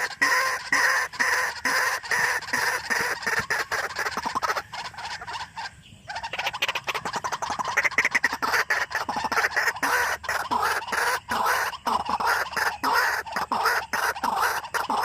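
White-breasted waterhen calling: a long, fast run of harsh, croaking notes repeated several times a second, dipping briefly about five seconds in before carrying on.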